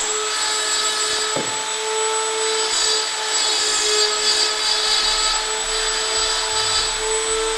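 Rotary tool spinning a small inverted cone burr, engraving antler: a steady high whine with a grinding hiss as the burr cuts.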